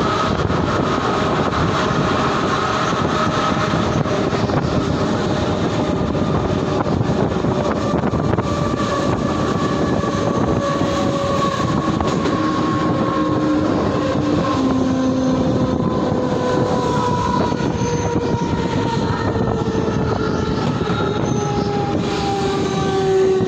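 Mumbai suburban local train (EMU) running, heard from its open doorway: a steady rush of running noise with the traction motors' whine slowly falling in pitch as the train slows toward a station.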